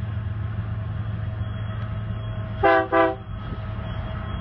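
Two short blasts of a Union Pacific diesel locomotive's multi-tone air horn, about two-thirds of the way in, over the steady low rumble of the passing train's diesel engine.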